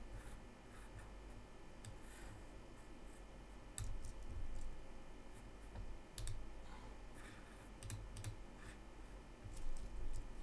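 Sparse, scattered clicks of a computer mouse and keyboard, a few single clicks with a small cluster near the end, over a faint steady low hum.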